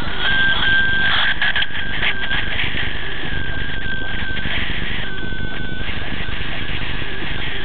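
Stalker traffic radar's Doppler audio heard inside a moving car: a high whistling tone that sounds in short stretches, steady in pitch, over a constant hiss, with the car's road rumble underneath.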